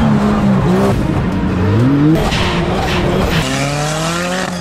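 Off-road 4x4 engines revving, their pitch climbing and dropping, then held high and easing off slightly near the end.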